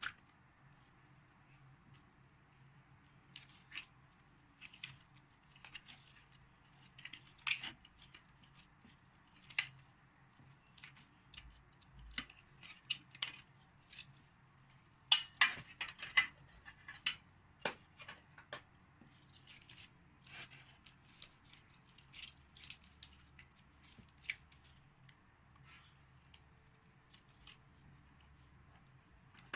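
Slime being mixed and squished by hand, giving irregular sticky crackles, clicks and small pops, busiest and loudest around the middle.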